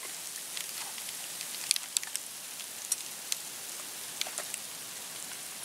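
Water dripping: a dozen or so irregular, scattered drips and small splashes over a steady hiss.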